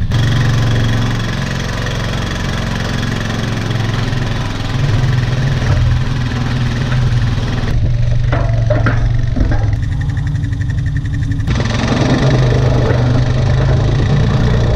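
Four-wheeler (ATV) engine running steadily under load as it tries to tow a chisel plow, without enough power or weight to pull it, with a few knocks about halfway through.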